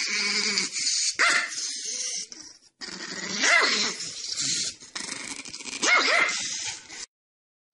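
A dog barking: a few separate short calls that rise and fall in pitch, cutting off suddenly near the end.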